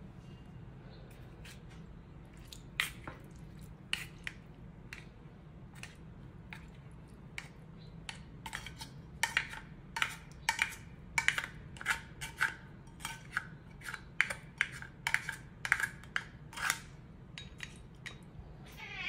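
A spoon scraping and tapping wet cat food out of a metal can into a ceramic bowl: a few scattered clicks at first, then a quick run of knocks and scrapes in the second half, many leaving a short ring.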